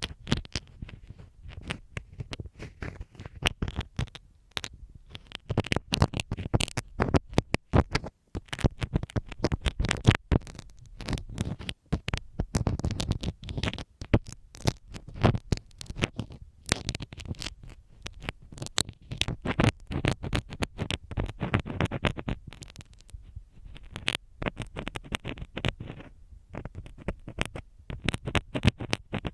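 A dressmaker's marking pin scratching and tapping in and around a binaural microphone's ear. It makes a dense, irregular stream of close scratchy clicks and rubbing, with a couple of brief pauses.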